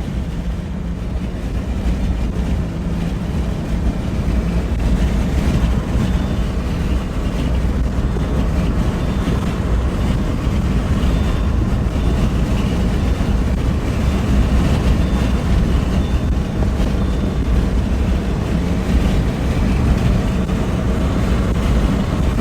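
A vehicle being driven: a steady low rumble of engine and road noise, growing slightly louder over the first few seconds and then holding steady.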